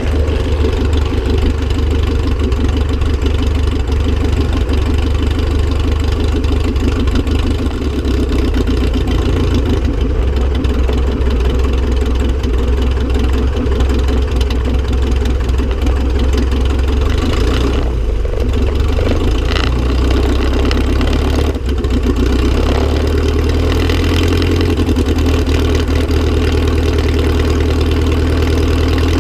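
Clipped-wing Piper Cub's Continental C-90 four-cylinder air-cooled engine running steadily at low power while the plane taxis.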